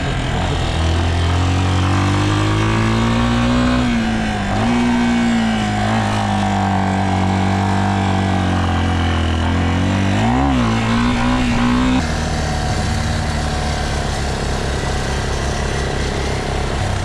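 Kawasaki KLX230SM's single-cylinder engine with an aftermarket Delta Barrel4-S muffler running under way at steady cruising revs, with a haze of wind and road noise. The pitch dips slightly a few times and drops and rises sharply about ten seconds in, as on a gear change or throttle blip. About twelve seconds in the engine sound changes abruptly to a lower, rougher running.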